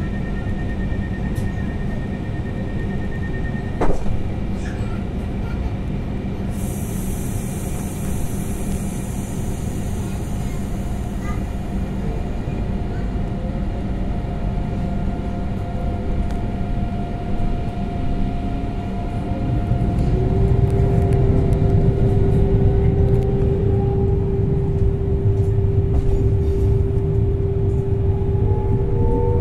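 Train running, with a steady low rumble and faint whining tones. A click comes about 4 seconds in and a high hiss from about 7 to 11 seconds. About 20 seconds in, the rumble gets louder and a stronger steady whine sets in, and near the end several whines rise in pitch.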